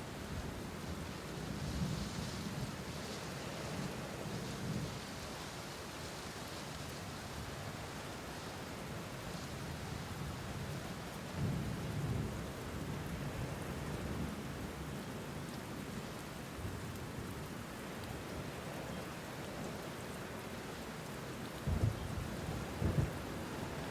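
Steady rain with low rolls of thunder, the strongest about halfway through and two short, sharper rumbles near the end.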